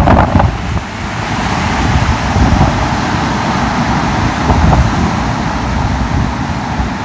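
Typhoon wind gusting hard and buffeting the microphone with a deep rumble. A strong gust eases about a second in, then the wind keeps up steadily.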